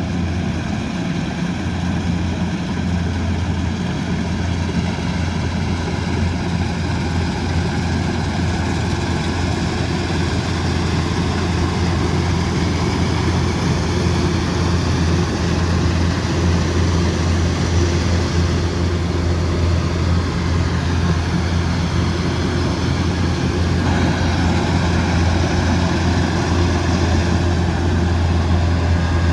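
Kubota DC108X combine harvester's diesel engine and machinery running steadily, a deep even hum under a continuous mechanical din.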